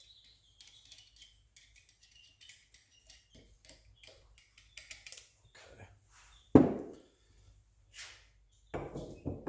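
Light clicks and taps of small steel parts being handled as shim washers are fitted onto the pulley shaft, with one sharp knock about two-thirds of the way through and a quick run of clanks near the end.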